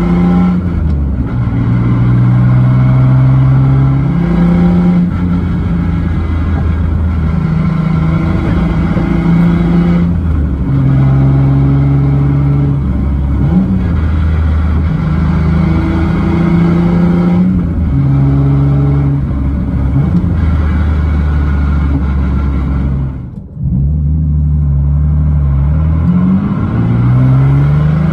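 Lexus IS300's 2JZ-GE inline-six engine running under way, heard from inside the cabin, its pitch holding and stepping as the car drives. About 23 seconds in the sound briefly drops away, then the engine note rises again as it pulls.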